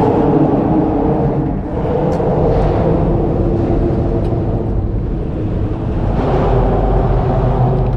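Steady mechanical rumble with a low, even drone, like a motor running.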